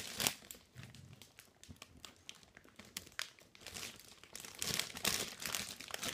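Plastic packaging crinkling and rustling as it is handled and pulled at by hand, in irregular crackles that grow louder and busier near the end.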